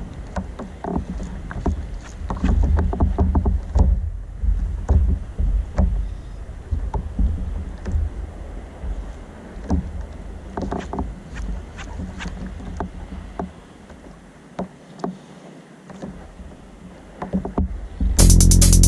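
Wind rumbling on the microphone over a drifting plastic sit-on-top kayak, with water lapping against the hull in short, irregular slaps and knocks. The rumble eases for a few seconds toward the end, then music cuts in abruptly just before the close.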